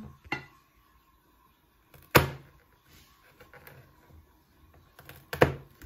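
Child's knife chopping down onto a cutting board: a few separate sharp knocks, the loudest about two seconds in and another near the end, with small ticks between.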